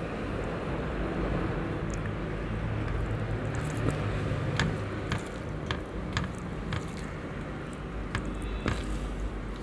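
Fingers mixing rice with chicken curry on a steel plate: soft squishing with scattered small clicks, over a steady low hum.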